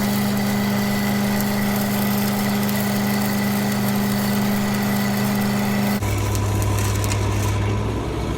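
An engine-driven welding machine runs at welding speed under the crackle of a stick-welding arc on the o-let fill pass. About six seconds in, the arc stops and the engine drops to a lower, slower idle.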